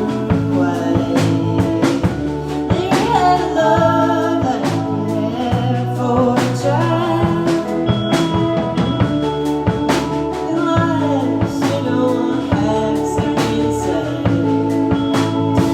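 Live indie rock band playing a song: a drum kit keeps a steady beat under bass and sung vocals.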